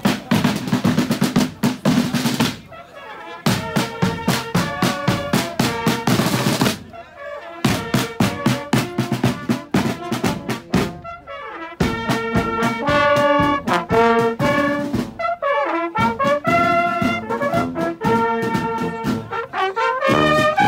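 Street brass band playing: drums beat a fast rhythm in the first part, with short breaks, then trumpets and sousaphone play a tune over the beat from about halfway through.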